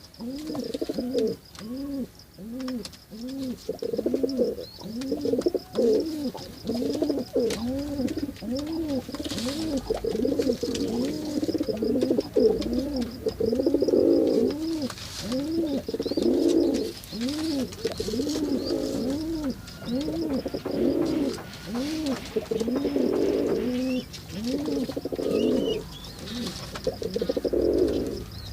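Pigeons cooing: a long run of short coos, each rising and falling in pitch, about two a second, with overlapping calls from more than one bird in the middle stretch.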